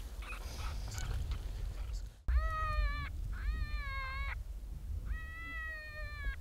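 Electronic predator call playing a distress cry: three high, drawn-out wails, each just under a second and alike in shape, starting about two seconds in after some faint rustling. A steady wind rumble runs on the microphone underneath.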